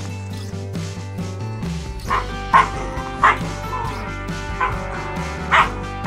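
Puppies yipping while they play-fight, several short sharp yips starting about two seconds in, over steady background music.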